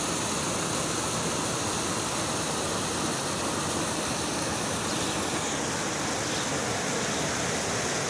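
Water pouring steadily over a low weir into a river, a constant even rush of falling and churning water.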